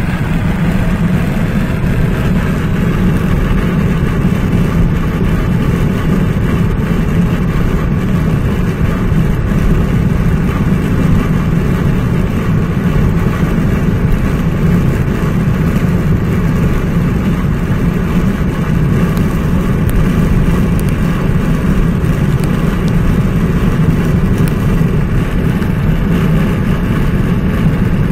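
Car cruising at highway speed, heard from inside the cabin: a steady, unbroken low rumble of tyres on pavement and engine.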